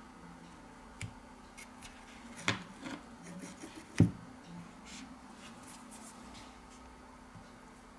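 Fingertip handling of a Huawei Mate 20's opened middle frame: soft rubbing with a few small clicks and taps, the sharpest knock about four seconds in, over a faint steady hum.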